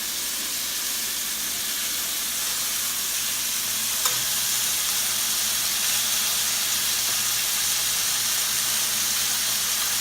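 Chicken tenders sizzling steadily in hot oil in a frying pan as they sear. A single sharp click about four seconds in, after which the sizzle is a little louder.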